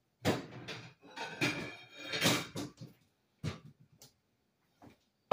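Kitchen cupboard doors and the things inside them being handled: a series of sharp knocks and clatters, a few with a brief ring.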